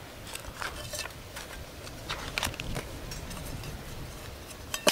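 Wood fire crackling in a small folding bushbox stove, irregular pops and snaps, with one sharper metal clink right at the end.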